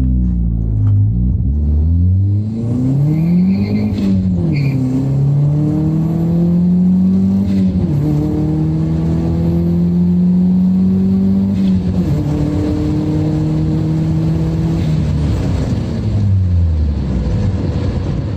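Turbocharged Toyota 1ZZ-FE four-cylinder engine accelerating through the gears. The revs climb and drop sharply at each shift, about four, eight and twelve seconds in, then fall off near the end.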